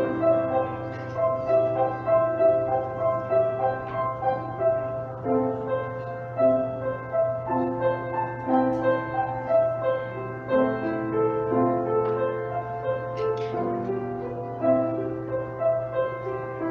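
Slow instrumental music on a keyboard instrument: a melody moving in held notes over sustained chords, with a steady low hum underneath.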